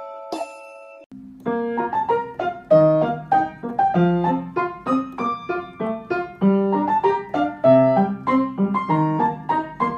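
Background piano music: a brisk run of short notes over a bass line starts about a second in, after a few chime-like notes ring out and fade.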